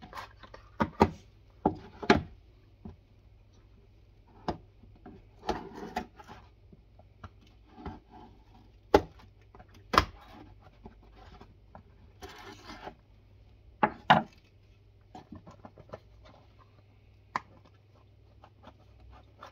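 A small cardboard earbuds box being opened by hand: irregular sharp taps and clicks, with short bursts of scraping and rustling as the seal is worked open and the inner tray slid out.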